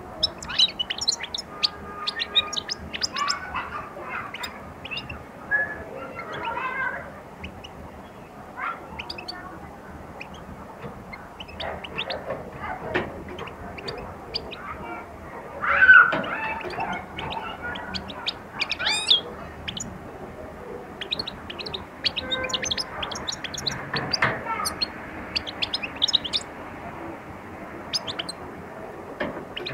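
Caged Algerian goldfinch (European goldfinch) singing: scattered bursts of quick, high twittering chirps with pauses between them, and one louder call about halfway through.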